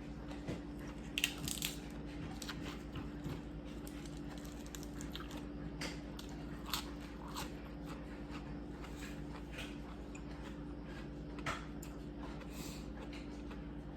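A person chewing and biting seafood close to the microphone, with scattered crunches and clicks that are loudest about a second in, near the middle and near the end, over a steady low hum.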